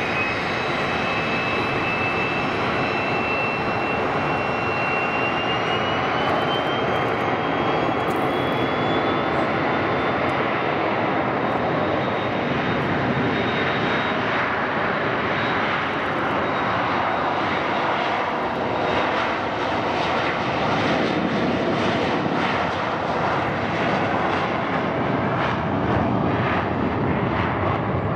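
Kawasaki C-1 transport's twin Pratt & Whitney JT8D turbofans running as it taxis, a steady jet roar. A high whine rises in pitch near the start, climbs slowly over the next ten seconds, then fades into the roar.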